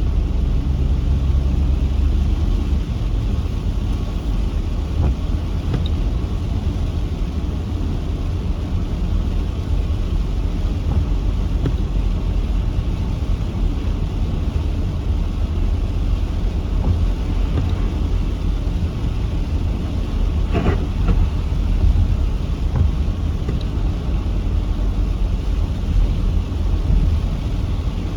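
Steady rushing noise with a deep rumble through a heavy rainstorm, with one brief, sharp rising sound about two-thirds of the way in.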